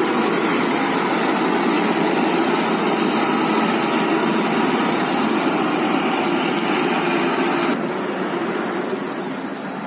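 Truck engine running close by as the truck drives past, a steady engine noise that drops off about eight seconds in.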